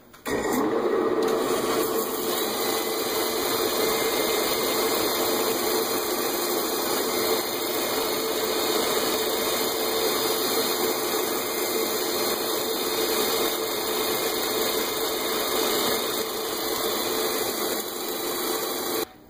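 Wood lathe spinning a natural-edge bowl while a cordless drill drives a firm sanding pad against the outside of the bowl: a steady mechanical whir with a hum and a sanding hiss. It starts just after the beginning and cuts off suddenly near the end.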